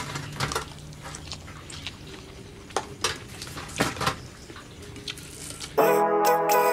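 Spoons clinking against plates and bowls as people eat, a scattered series of short clinks. Background music starts suddenly near the end.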